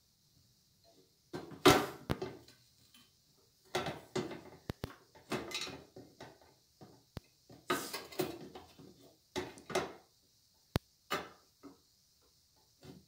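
Irregular metal clanks, knocks and rattles as a bandsaw's work table is handled, seated on its tilting trunnion and locked down with the knob beneath it. The loudest clank comes about two seconds in, with a few sharp single clicks later.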